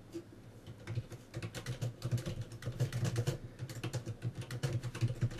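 Typing on a computer keyboard: a quick, uneven run of key clicks that starts about a second in and keeps going, as a line of text is typed.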